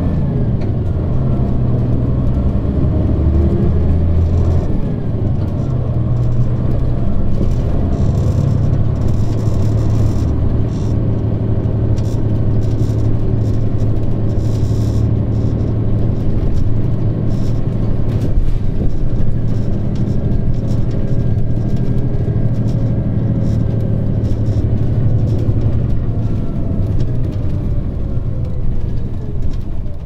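Mitsubishi Fuso KL-MP35JM city bus's naturally aspirated 12.9-litre 6M70 inline-six diesel running steadily under load as the bus drives along, heard from on board. The engine note falls away near the end as the bus eases off.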